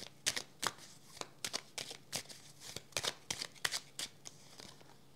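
A deck of oracle cards being shuffled by hand: a run of quick, irregular card flicks and taps that stops about four seconds in.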